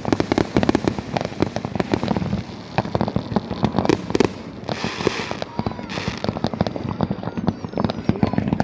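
A fireworks display going off: a rapid, dense run of bangs and pops, with two hissing, crackling bursts around the middle.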